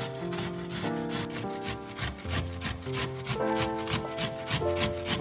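Onion rasped against the metal teeth of a stainless-steel box grater in a steady run of quick scraping strokes, over background music with held notes.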